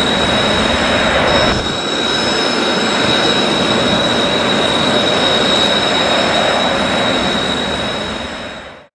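Jet engine sound effect played by a 1/32 scale F-4EJ Phantom II model's built-in sound unit: a steady rushing noise with a high whine. It shifts slightly about a second and a half in, then fades and cuts off near the end.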